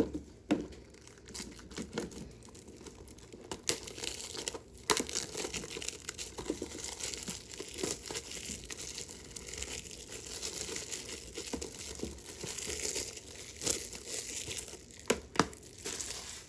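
Plastic wrap on a Blu-ray case crinkling and tearing as it is pulled off, with scattered sharp clicks of the case being handled, a few louder ones near the end.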